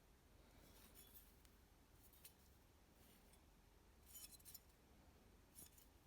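Faint, crisp scraping clicks in four short bursts over a low steady hum.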